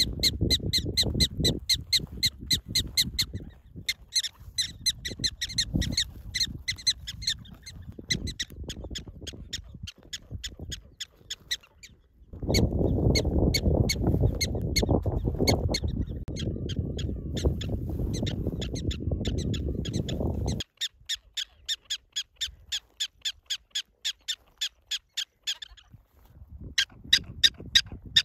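Black-tailed prairie dogs calling: long runs of short, high, evenly repeated chirping barks, about five a second, stopping and starting in several series. A loud low rumble, likely wind on the microphone, lies under the calls from about twelve seconds in to about twenty-one.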